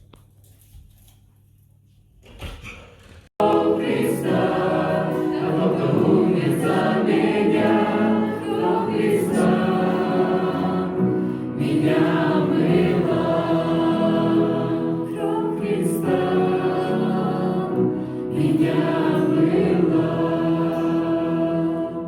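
A choir of many voices singing together, coming in suddenly a few seconds in after a quiet start.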